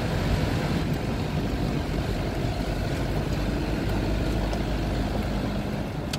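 Truck's diesel engine running steadily, a low rumble heard from inside the cab.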